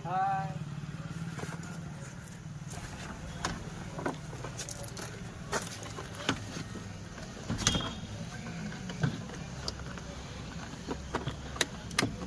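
Scattered sharp clicks and knocks from work on a car, over a low steady hum.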